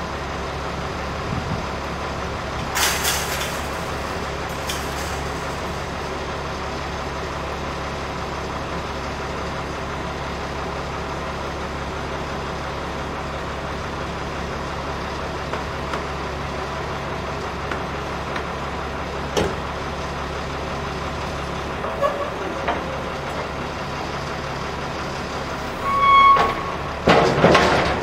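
Heavy truck idling with a steady low engine drone, broken twice by loud hisses of air, about three seconds in and near the end, typical of air brakes. A short high beep sounds just before the second hiss.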